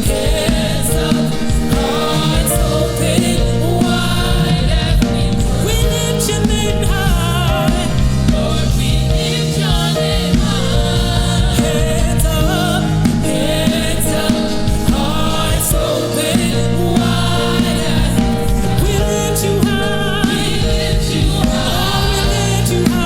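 Gospel worship song: singers' voices over sustained keyboard chords and a steady bass.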